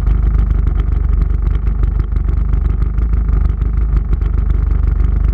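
Two-stroke jet ski engine idling with a steady, rapid low putter.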